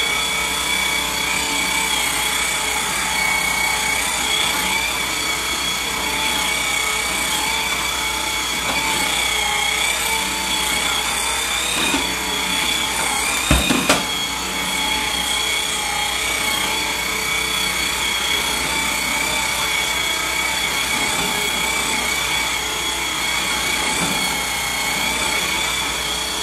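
Swivel Sweeper's small battery-powered motor running steadily with a thin whine as its brushes spin while the sweeper is pushed over the floor. A single knock about halfway through.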